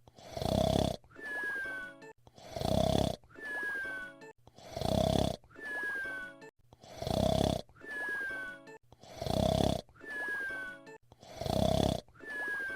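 Cartoon whistle-snore: a loud, rasping snore on the breath in, then a thin whistle that falls slightly in pitch on the breath out. The cycle repeats evenly about every two seconds, six times.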